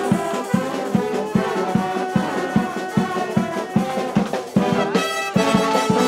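Brass street band playing live: trombones and other horns sounding held and moving notes over drums keeping a steady beat. The band drops back briefly about four and a half seconds in, then comes back in full.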